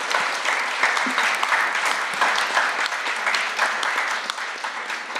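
Audience applauding: many hands clapping in a dense, even patter that eases off slightly near the end.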